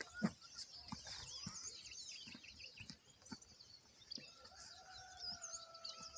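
Many small birds chirping and twittering, with a few faint knocks and rustles. About four seconds in, a faint long held tone sounds for about two seconds, falling slightly in pitch.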